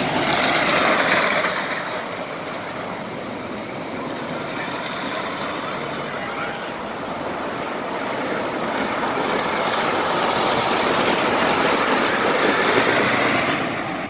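A wooden roller coaster's train running along its track with a loud, steady rumble that eases after a couple of seconds, swells again, and drops off near the end.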